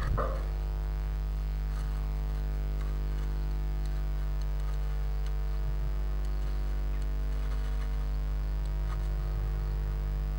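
A steady electrical hum, with a brief scrabble right at the start and faint scratches now and then as a blue tit shifts about on its moss nest inside the nest box.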